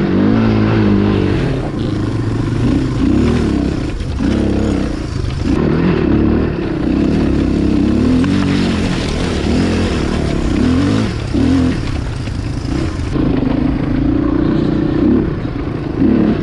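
1996 Suzuki DR350SE's single-cylinder four-stroke engine, heard from on the bike, revving up and down again and again with the throttle while riding rough off-road ground.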